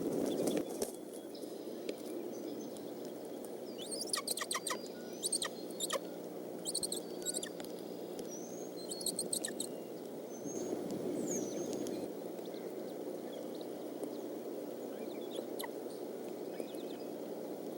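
Steady rain hiss with scattered short, high bird chirps and clicking notes through the middle.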